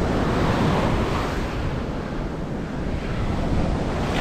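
Surf breaking on a sandy beach, with wind buffeting the microphone: a steady rushing noise with no distinct events.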